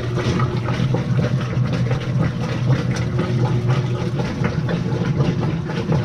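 Whirlpool top-load washing machine running, a steady motor hum with a fast scatter of small clicks and splashes as the agitator works in a tub of water. The agitator turns all the way around instead of moving back and forth, and its retaining screw is loose, which the repairer takes for the cause of the bad vibration.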